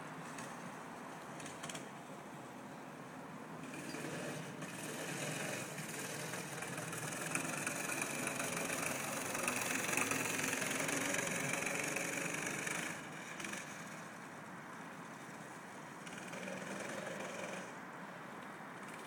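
Go-kart engines running on an ice track. The engine noise builds from about four seconds in, is loudest around ten seconds, drops away suddenly about thirteen seconds in, and swells again briefly near the end.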